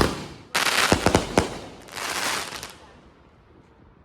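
Fireworks going off: a sharp bang, then a quick string of loud cracks about half a second later, and a noisier burst about two seconds in that dies away.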